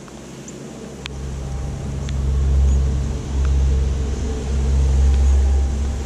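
Low rumble of a vehicle engine nearby, swelling about a second or two in and staying loud, with a brief dip partway through. A few faint, high bird chips sound above it.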